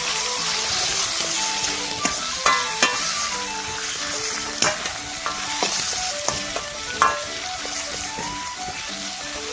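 Food sizzling and being stir-fried in a wok: a steady hiss of frying, broken by a few sharp knocks of the utensil against the pan. Background music with plucked notes plays underneath.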